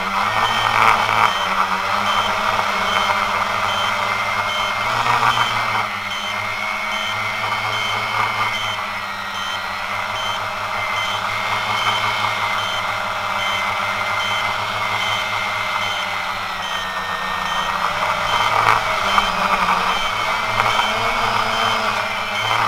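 Quanum Nova quadcopter's brushless motors and propellers whining steadily close to the mic, the pitch wavering up and down as the throttle changes, over a rushing air noise. A faint high beep repeats evenly throughout.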